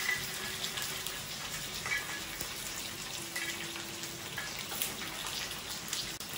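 Hot oil in a small tempering pan sizzling and crackling steadily around curry leaves, mustard seeds and cumin seeds, with scattered faint ticks.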